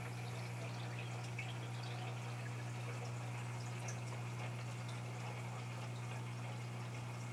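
Aquarium pump humming steadily, with water trickling and faint drips or bubbles ticking over it.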